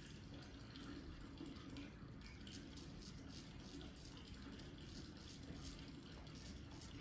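Faint scratching of a straight razor drawn over skin and stubble in short strokes, coming as a run of small scrapes from about two and a half seconds in, over a low steady room hum.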